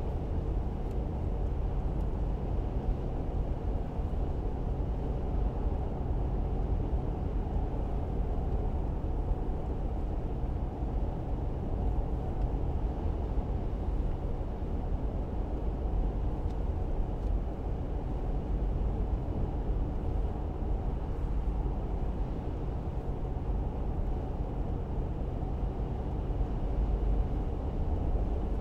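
A car driving at a steady pace: an even low rumble of engine and tyre noise with no changes in pitch or speed.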